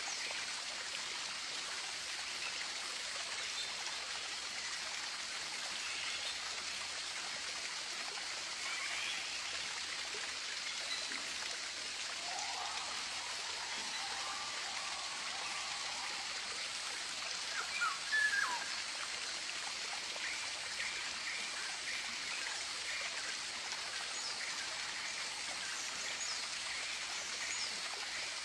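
Tropical birds calling now and then over a steady hiss of running water: short chirps and whistles, a louder cluster of calls about 18 seconds in, and a quick run of chirps near the end.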